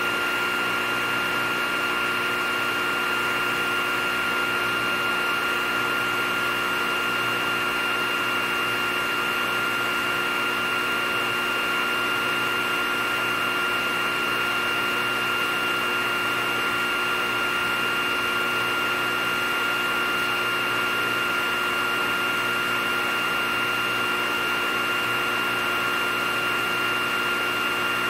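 Hot-air SMD rework station blowing air steadily through its nozzle: an even rush of air with a constant high whine from the blower, unchanging throughout.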